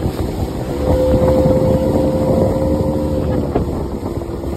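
Small open motorboat running at speed, its engine and the water rushing past the hull, with wind on the microphone. A steady droning tone holds for about three seconds in the middle.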